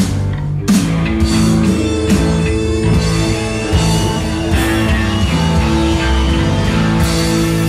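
A live rock band playing: electric guitar, keyboard and drums. The sound thins briefly at the start and the full band comes back in under a second in.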